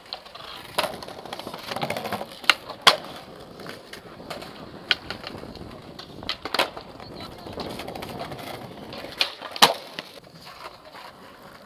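Skateboard wheels rolling over stone paving slabs, with a series of sharp clacks of the board popping and landing during flatground tricks. The loudest clack comes near the end.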